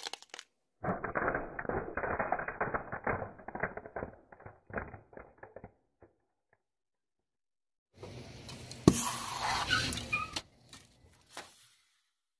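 Car tyre rolling over and crushing a small yellow plastic object: dense crackling and snapping that thins out into a few scattered snaps. After a pause comes a second stretch of crunching noise with one sharp crack.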